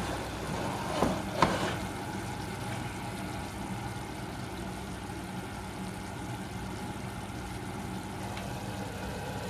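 A small motor running with a steady hum and faint hiss, with two brief clatters about a second and a second and a half in.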